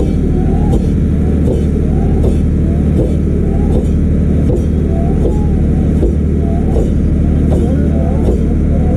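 A motorboat engine running steadily close by, with a regular pulse about every three-quarters of a second: the stroke rhythm of a Kerala snake boat's rowers, their calls and paddle strokes keeping time.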